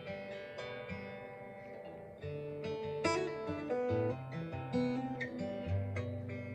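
Acoustic guitar played without singing, strummed chords over a bass line that steps from note to note.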